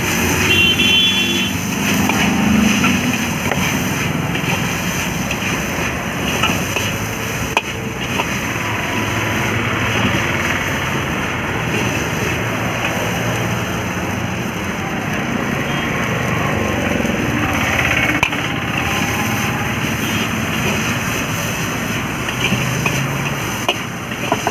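A steel ladle scraping and stirring noodles around a large metal wok, with a few sharper knocks of the ladle on the wok, over a steady roar of background noise.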